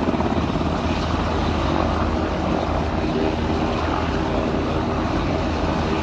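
Aircraft engine noise: a steady, unbroken drone with a low hum underneath.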